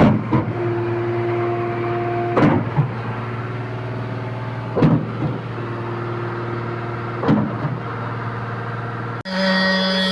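Concrete pump running, its steady engine hum broken by a knock about every two and a half seconds as the pumping pistons change stroke. The sound changes abruptly near the end.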